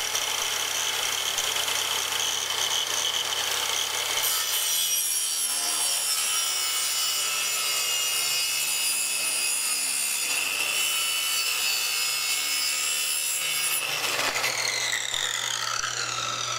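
Handheld circular saw running at full speed with a steady whine, then cutting through a wooden board for about ten seconds. Near the end the trigger is let go and the blade winds down, its pitch falling.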